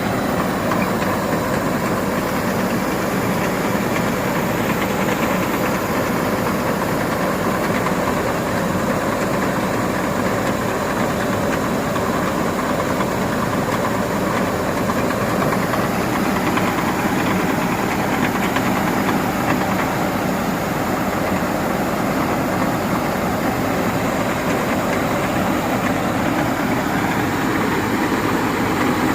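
Dasmesh 3100 mini combine harvester running steadily, a loud, even mechanical drone of engine and machinery; its pitch shifts slightly near the end.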